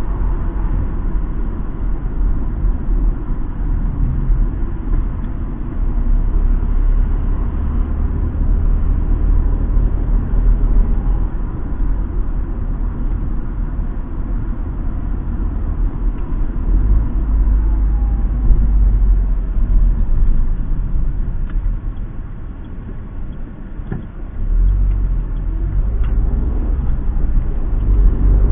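Car driving, heard from inside the cabin: a steady low rumble of engine and road noise. It dips quieter for about two seconds roughly three-quarters of the way through.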